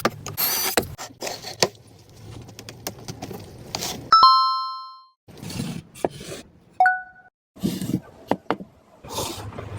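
Light handling and tool clicks, then a sharp metallic ding about four seconds in that rings on and fades over about a second. A second, shorter and lower ding follows near seven seconds.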